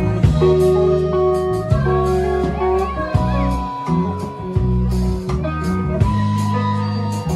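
Live band playing an instrumental passage: harmonica over strummed acoustic guitar, electric bass and drums, with a steady beat.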